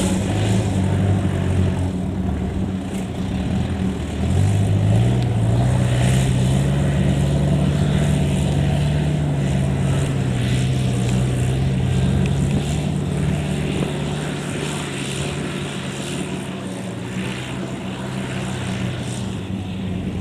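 Kubota DC70 combine harvester's diesel engine running. It revs up about four seconds in and holds a higher, steady pitch, then eases off gradually in the second half.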